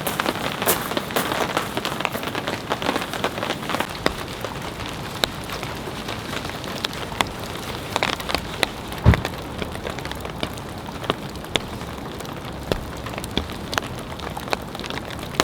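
Steady rain falling, with many individual drops striking close by as sharp ticks, and one heavier thump about nine seconds in.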